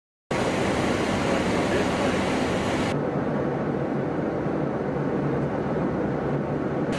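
Steady cabin noise of a Boeing 737-type jet in cruise: turbofan engine and airflow noise heard from inside the cabin, coming in abruptly. About three seconds in it turns duller as the high hiss drops away.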